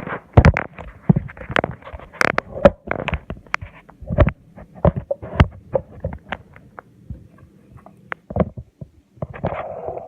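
Irregular clicks, taps and knocks of handling close to the microphone, some with a dull low thud, coming in quick clusters with short gaps: the sound of the camera being set up.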